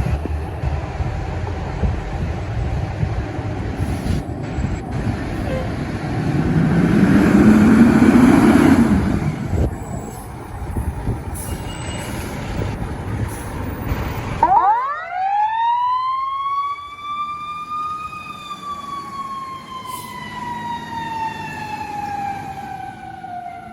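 Fire truck's engine and road noise, swelling loudly and falling back about seven to nine seconds in. About fourteen seconds in the rumble cuts out abruptly and a fire truck siren winds up over about three seconds, then slowly winds down.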